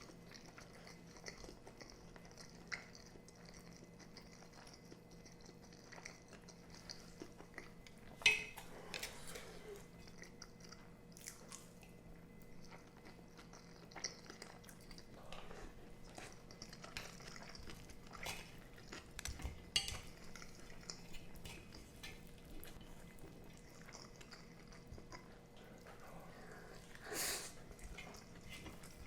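Close-miked chewing and mouth sounds of someone eating, with scattered clicks of utensils against a dish; the sharpest clink comes about eight seconds in, with others near twenty and twenty-seven seconds.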